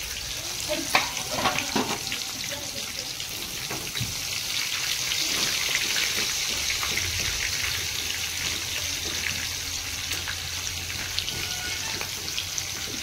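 Sliced onions deep-frying in hot oil in a steel kadai, a steady sizzle, with a few sharp clinks of a metal spoon against the pan about one to two seconds in.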